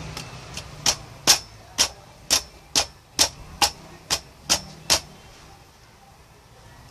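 A run of about ten sharp clicks or pops, roughly two a second, from the homemade green slime being handled.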